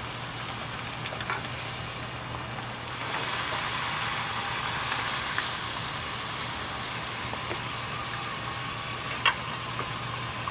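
Battered sweet potato tempura sizzling steadily in frying oil held at a low 160 °C, a little louder from about three seconds in, with a light click near the end.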